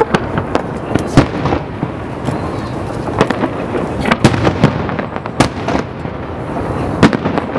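Aerial firework shells bursting in quick, irregular succession: sharp bangs over a continuous low rumble of booms. The loudest bangs come about a second in and about seven seconds in.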